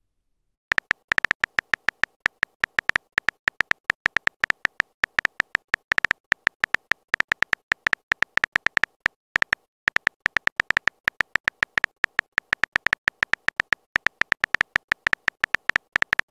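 Simulated phone-keyboard typing clicks from a texting app: a rapid run of short, crisp clicks, several a second, as a message is typed out letter by letter, with a brief pause about ten seconds in.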